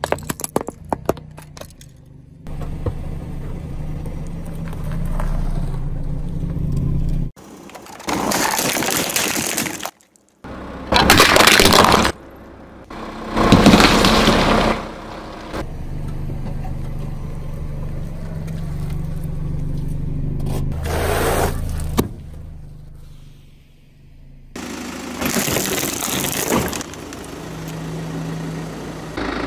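A car running slowly with a steady low engine hum while its tyre rolls over and crushes objects: plastic sunglasses crackling and snapping in the first couple of seconds, and later an orange squashing. There are several loud bursts of crunching and cracking a few seconds apart.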